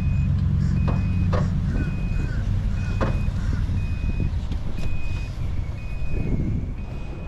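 A vehicle's reversing alarm beeping steadily, about once a second, over a low, continuous engine rumble, with a few short knocks in between.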